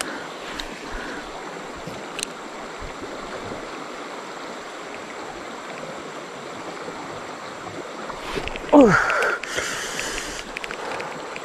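Fast river water rushing steadily over a rapid. About eight and a half seconds in there is a short sound that falls sharply in pitch, then about a second of brighter hiss with quick ticking.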